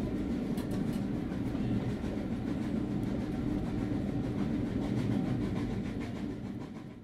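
Steady rumble of a steam-hauled passenger coach running along the rails, heard from inside the coach with faint ticks from the track. It fades out near the end.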